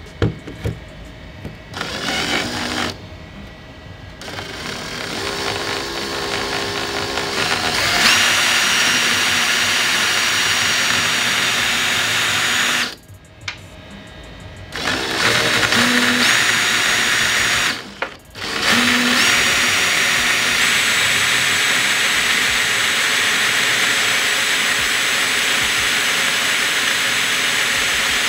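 Cordless DeWalt drill boring down through a wooden block into the workbench top, making bolt holes to mount a bench vise. It runs at length with a steady high whine, building up over the first several seconds and stopping briefly twice around the middle.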